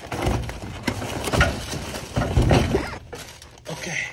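Cardboard snack boxes being shoved and shuffled into the storage compartment under a vending machine's shelves, making irregular knocks and scrapes. The loudest come about one and a half and two and a half seconds in.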